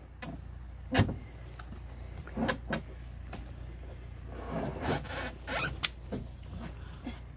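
A heavy lithium battery being shifted and tipped in a metal battery box: a sharp knock about a second in, a few lighter knocks, then a stretch of scraping and rubbing and a short click near the end, over a steady low hum.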